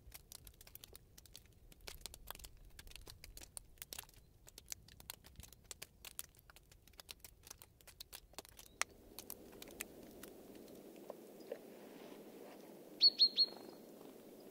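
Fine, irregular crackling and ticking of melting snow and ice, many small clicks a second. About nine seconds in it gives way to a faint steady hiss, and near the end a small bird gives three quick high chirps, the loudest sound.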